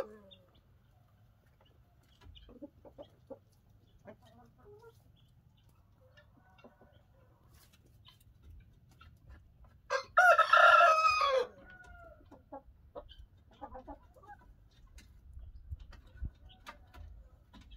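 A rooster crows once, loudly, about ten seconds in; the crow lasts about a second and a half. Faint, soft clucks come and go around it.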